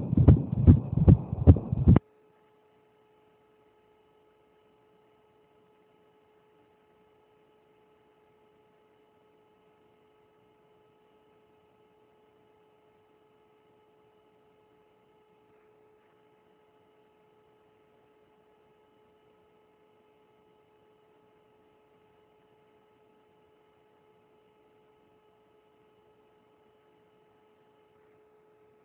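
Fetal heartbeat on an ultrasound machine's Doppler: fast, even pulses that cut off suddenly about two seconds in, leaving only a faint steady electrical hum.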